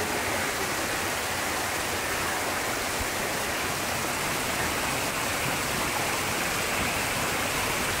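Steady rush of a small waterfall and cascading mountain stream pouring over rocks into a pool.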